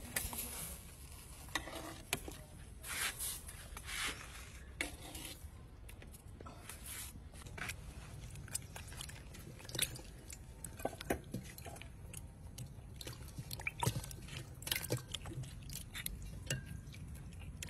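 Wet handling sounds of frogs being rubbed and rinsed by hand in water in a steel basin: irregular squelches, drips and small splashes, with light knocks against the metal.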